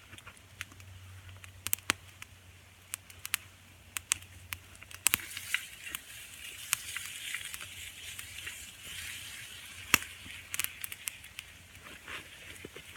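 Wood campfire crackling with scattered sharp pops, and hamburger frying in a cast-iron pan, its sizzle growing louder about five seconds in.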